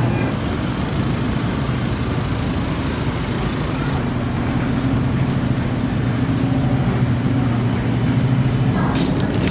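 Grocery store ambience: a steady low hum over a noisy background, with a few sharp clicks and clatters near the end.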